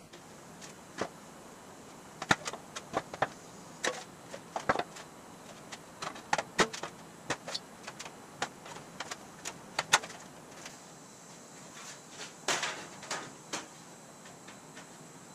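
Aluminum hood panel being run back and forth through an English wheel under light pressure, with irregular light clicks and ticks as the sheet flexes and rolls. A short burst of louder metallic clatter comes near the end.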